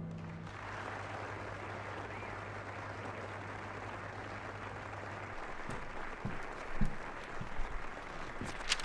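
An audience applauding steadily after a guitar number ends. A low steady hum sits underneath and stops about halfway, and a few short knocks and clicks come in the second half.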